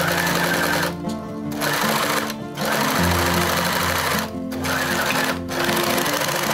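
Serger (overlock machine) running as it stitches a knit ribbed cuff, in several stretches broken by short pauses, with background music.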